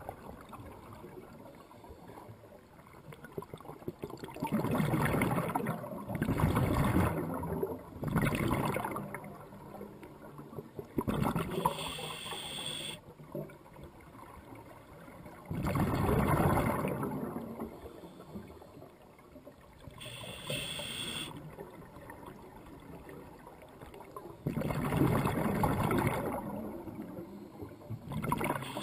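Scuba diver's regulator breathing underwater: short hissing inhales alternate with longer rushes of exhaled bubbles, repeating every few seconds.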